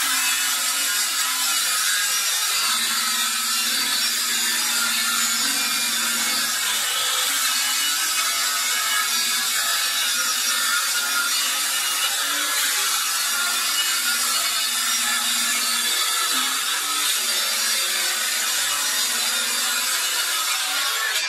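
Cordless circular saw ripping lengthwise through a 24 mm thick solid cedar board, the blade cutting steadily under load.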